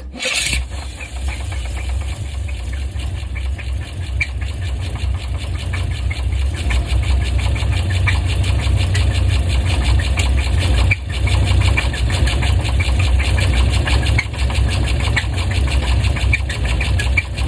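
Chevrolet 350 Vortec small-block V8 running, with a fast, even ticking knock through it and a brief break about eleven seconds in. The owner calls it still not right and suspects a cracked flex plate.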